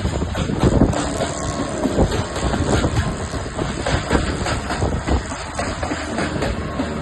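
Backhoe loader working: a diesel engine rumbling under a steady stream of irregular metallic knocks and clanks.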